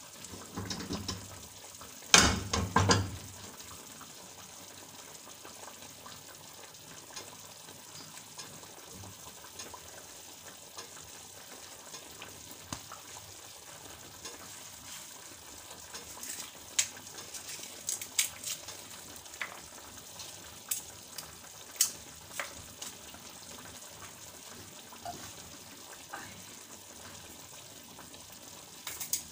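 A pan of milkfish and eggplant cooking in vinegar and oil on a gas stove, sizzling with scattered crackles and pops. About two seconds in, a pan is handled with a brief loud clatter on the stove.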